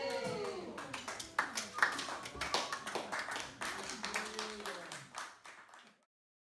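Scattered clapping and chatter from a room of folk musicians just after their tune ends, fading out near the end.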